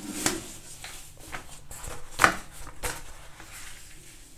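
Handling noise from a paper page and pen being moved on a desk: a few short taps and rustles, the sharpest about two seconds in, over a quiet room.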